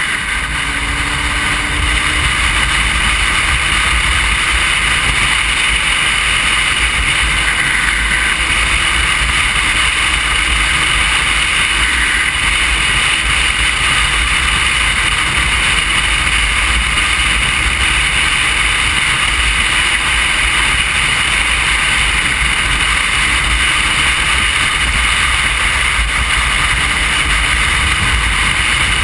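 Steady rush of wind and road noise on a motorcycle-mounted camera at cruising speed, with the bike's engine running faintly beneath.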